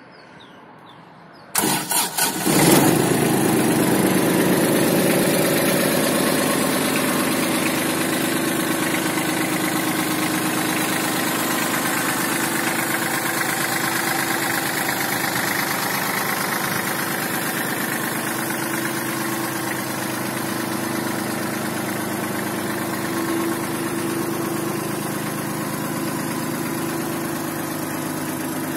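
Kubota Aste A-19 mini tractor's diesel engine starting: a brief burst of cranking about a second and a half in, then it catches and idles steadily, easing slightly in loudness over the following seconds.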